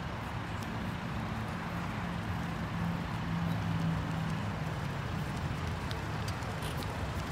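A MINI convertible's engine running as the car creeps slowly along, a steady low hum that swells slightly about halfway through.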